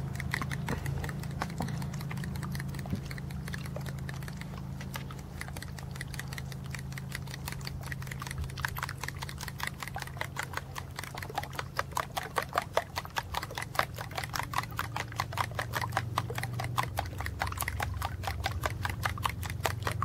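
Eggs being beaten in a cup, the utensil clicking rapidly against the cup's side. The clicks grow louder and more insistent from about halfway through.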